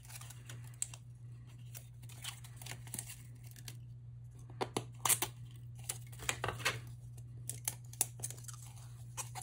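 Thin PLA brim being peeled off 3D-printed plastic parts by hand: scattered small clicks and crackles as the strips tear away, over a low steady hum.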